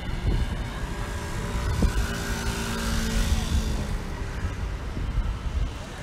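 Wind buffeting the microphone, with a steady engine hum that swells and fades, loudest about halfway through.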